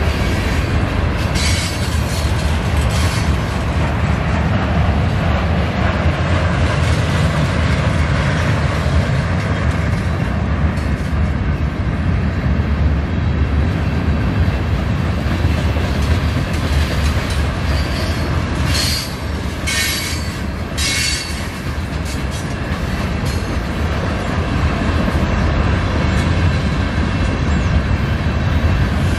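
Freight train rolling past with a continuous heavy rumble of cars on the rails. A few short high-pitched wheel screeches come about two seconds in and again about two-thirds of the way through.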